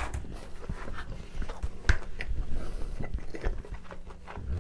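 Close-miked chewing of pizza with a full mouth: wet mouth sounds and scattered sharp clicks, the loudest about two seconds in.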